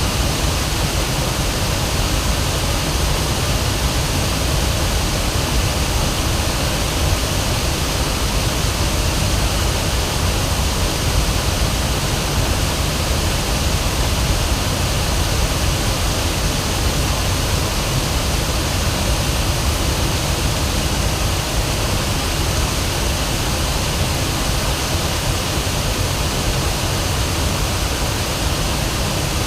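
Waterfall: water pouring over a river fall, a steady, loud rushing with no break.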